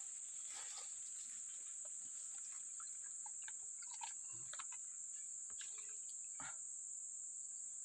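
Steady high-pitched drone of insects, crickets or the like, with a scatter of faint light clicks and clatters from a spoon and plastic bowls being handled.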